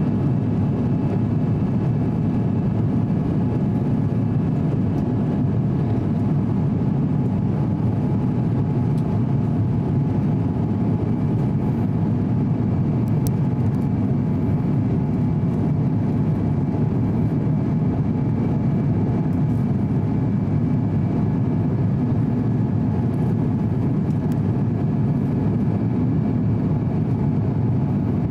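Steady cabin noise inside an Airbus A350-900 in flight: the low roar of its Rolls-Royce Trent XWB turbofan engines and the airflow, with a few faint steady tones above it.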